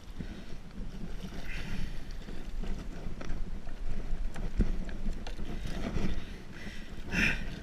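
Water moving against a kayak hull, with wind on the microphone and a few sharp knocks, the clearest about four and a half seconds in.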